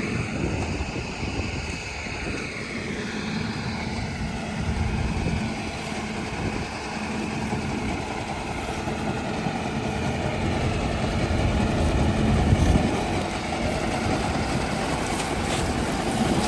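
Tractor engine running steadily while working a leek harvester, with a low hum, growing a little louder in the second half.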